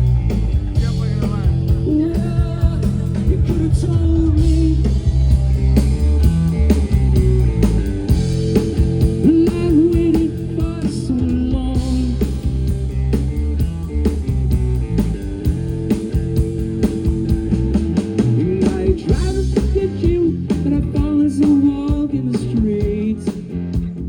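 Rock song with singing, electric guitar and a drum kit.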